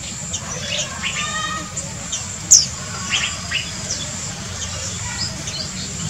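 Black-naped oriole calling in forest: a scatter of short chirps and whistles, with a quick run of notes about a second in and one loud, sharp downward-sweeping note about two and a half seconds in, over a steady high-pitched tone.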